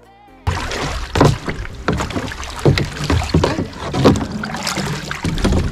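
Kayak paddles dipping and splashing in the water as the boat is paddled through thick water-lily pads, with irregular knocks and wind noise on the microphone.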